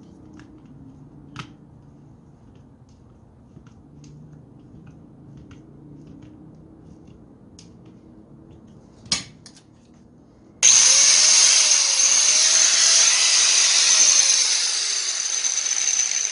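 A few light clicks from a screwdriver working on the grinder's housing, then a sharp knock. At about ten and a half seconds a small electric hand grinder is switched on and runs at full speed, loud and steady with a high whine. It runs without cutting out, now that its broken power cord has been replaced.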